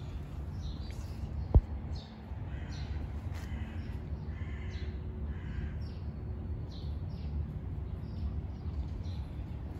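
Birds calling in short, repeated high calls over a steady low rumble, with one sharp knock about one and a half seconds in.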